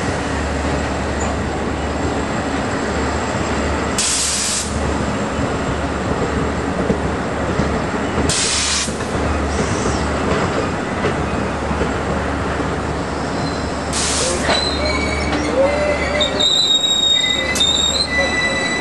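Long Island Rail Road C3 bilevel coaches rolling slowly past, a steady rumble of wheels on rail with a short burst of hiss every four to five seconds. From about two thirds of the way in, high steady wheel and brake squeals join as the train slows to a stop.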